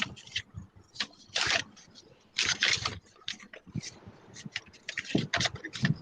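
A sheet of paper being folded and creased by hand, crinkling and rustling in irregular bursts with short crackles, two longer rustles about a second and a half and two and a half seconds in.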